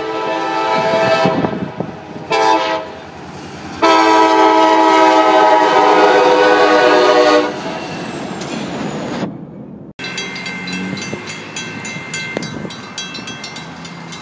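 Diesel freight locomotive air horn blowing for a grade crossing: a long blast ending about a second and a half in, a short blast, then a long blast of about four seconds, followed by the rumble of the passing train. After an abrupt cut about ten seconds in, a railroad crossing bell is ringing.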